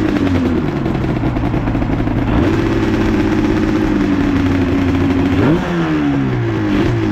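Motorcycle engine idling close by, with short throttle blips: the revs step up about two and a half seconds in, then rise sharply and fall back to idle about five and a half seconds in, with a smaller blip near the end.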